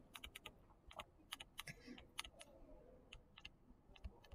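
Faint, irregular clicks and taps of a stylus on a pen tablet as an equation is handwritten, many small ticks at an uneven pace.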